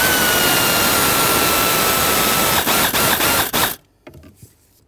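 Power screwdriver motor running as it backs out a small Phillips screw from the blend door actuator's mounting bracket: a loud, steady whine that sags slightly lower, with a few brief dips near the end, stopping just before four seconds in.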